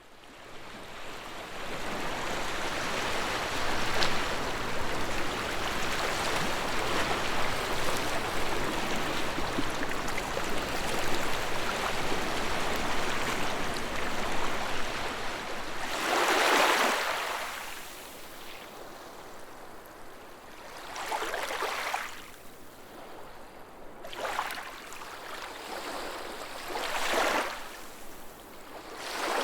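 Sea waves on a coastline. A continuous rush of water for about the first half, then quieter, with separate waves surging in one after another every few seconds.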